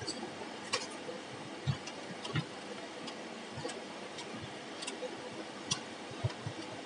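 Wire pay-off spool and chain making machinery making sharp, irregular ticks and knocks, roughly one a second, over a steady hiss.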